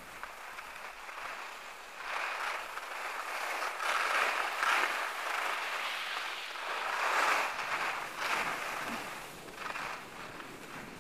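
Skis sliding and scraping on hard-packed snow, a steady hiss that grows louder about two seconds in, swells with the turns, and eases off near the end.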